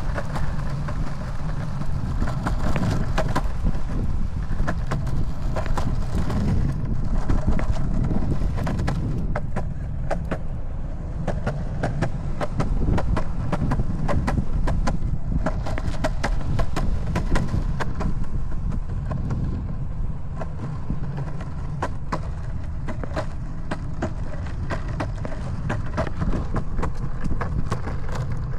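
Longboard wheels rolling on a concrete path: a steady low rumble with frequent sharp clicks as the wheels cross the seams in the pavement.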